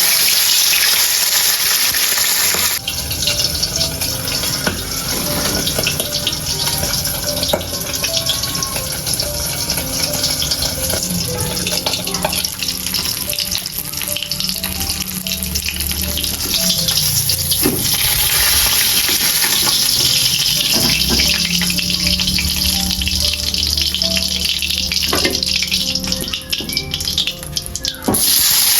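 Water running from a tap into a sink, with occasional clinks, over soft background music.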